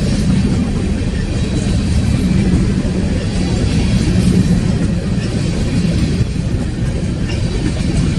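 Long coal train rolling past: a steady, loud rumble of wheels on rail.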